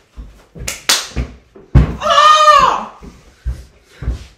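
A girl's wordless, high-pitched vocal cry, rising then falling and lasting under a second, about two seconds in. Two sharp hits come just before it and dull thumps follow.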